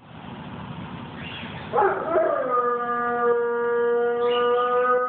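A dog howling: one long howl that begins nearly two seconds in with a brief wavering onset, then holds a steady pitch.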